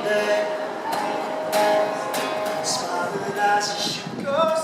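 A busker singing to a strummed acoustic guitar.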